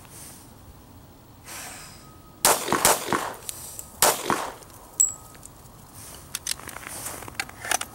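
Handgun firing a Mozambique (failure-to-stop) drill: two quick shots to the chest about two and a half seconds in, then a single shot to the head about a second later. A sharp click follows about a second after the last shot.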